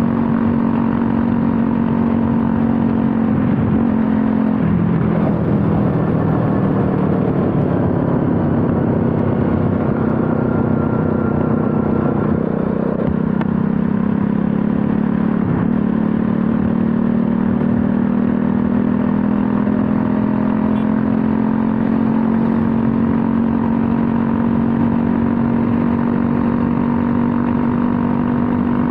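Bajaj Pulsar NS200's single-cylinder engine running steadily at road speed, heard from the rider's seat with wind and road noise. The engine note drops about four seconds in, comes back up around thirteen seconds, then climbs slowly as the bike gathers speed.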